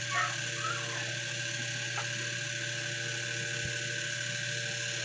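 Steady electrical hum with a faint whine, like a small motor or appliance running; a soft click about two seconds in.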